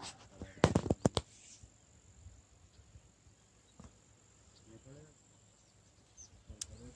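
A steady, high-pitched insect drone in the background, with a quick cluster of sharp clicks or knocks about a second in and faint distant voices near the end.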